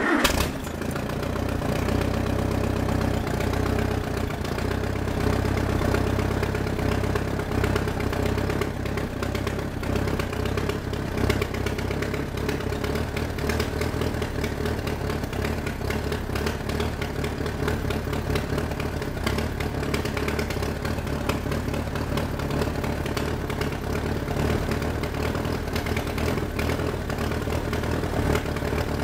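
Allis-Chalmers D14 tractor's four-cylinder gasoline engine, cold and on a little choke, comes in abruptly at the start and then runs at a steady idle.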